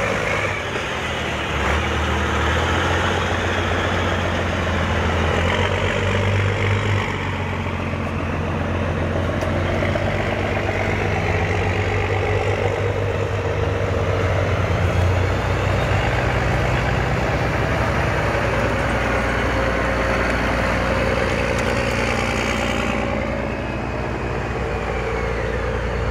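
Heavy military vehicle engines running steadily, with a few slow rises and falls in pitch.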